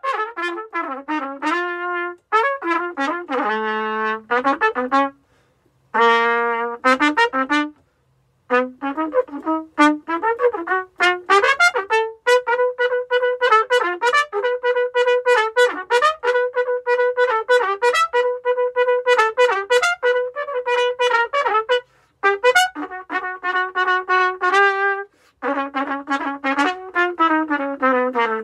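Solo trumpet, unaccompanied, playing phrases of tongued notes with short breaks for breath. It includes a long middle passage of repeated notes on one pitch.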